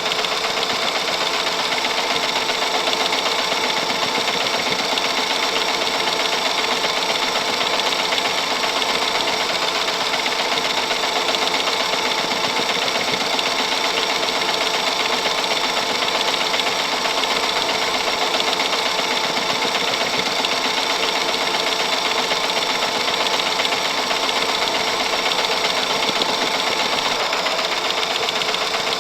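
Super 8 film mechanism running, a steady, rapid mechanical clatter of the film being pulled through frame by frame.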